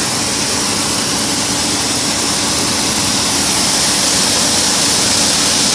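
John Deere 2388 combine running steadily under load while harvesting corn, a dense even engine-and-machinery noise with a faint steady hum underneath.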